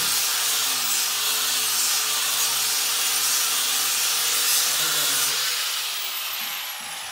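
Angle grinder grinding down wood at a doorway threshold: a dense steady hiss over a low motor hum. About six seconds in it eases off and winds down with a faint falling whine.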